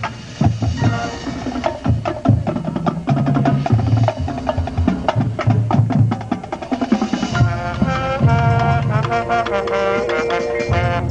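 Marching band playing its field show: a drum-line and percussion passage of quick drum and wood-block hits, then the brass section comes in with held chords about seven seconds in.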